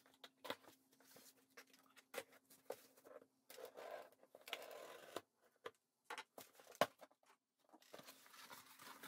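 Cardboard shipping box being opened by hand: faint scattered clicks and scrapes of cardboard and packing tape, with a longer tearing, rustling stretch about four seconds in.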